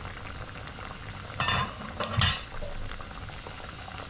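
Short ribs bubbling and sizzling in the last of their cooking water, which has cooked down nearly dry in the pot. Two short clinks of cookware about a second and a half and two seconds in, the second louder.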